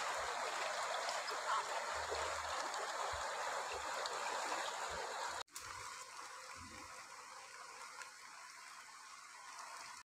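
Shallow river flowing, a steady rush of water; it drops quieter after a cut about five and a half seconds in.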